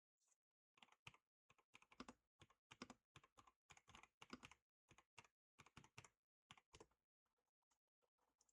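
Faint typing on a computer keyboard: quick runs of keystrokes with short pauses, thinning out near the end.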